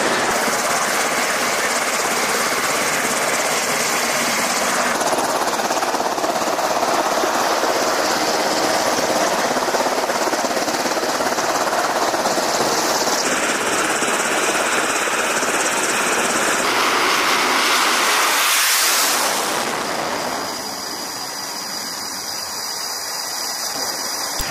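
Steady jet engine noise on an aircraft carrier's flight deck, changing character at a few edits and easing somewhat about twenty seconds in.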